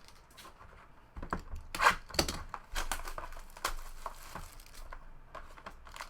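Card pack wrapper being torn open and crinkled by hand, in irregular sharp rustles and crackles starting about a second in, loudest around two seconds in.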